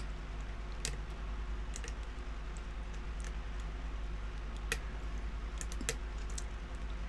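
Lock picks working inside a pin-tumbler lock: scattered, irregular small metal clicks as the pick lifts and sets the pins, with two sharper clicks about two thirds of the way through.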